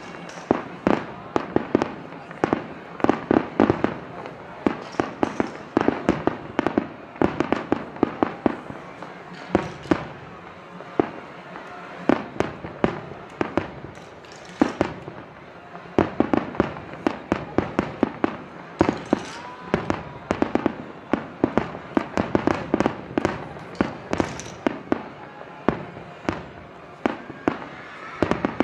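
Fireworks display: aerial shells bursting in a rapid, continuous barrage, several sharp bangs a second with crackling between them, broken by a few short lulls.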